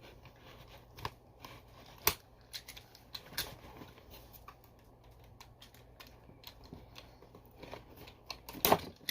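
Hands fiddling with a small plastic fastener on a toy's packaging box: scattered sharp clicks and light scraping, with the loudest snaps about two seconds in and near the end.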